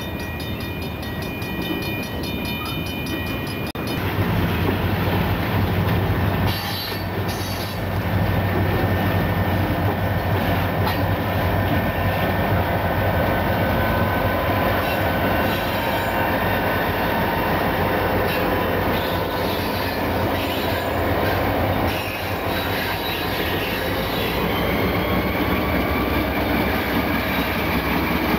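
Freight train passing close at track speed: for the first few seconds the cars roll by with a thin, steady high-pitched wheel squeal, then it turns suddenly louder as a lash-up of Burlington Northern EMD SD40-2 diesel locomotives goes by, engines running with a steady low drone over the clatter of wheels on the rails.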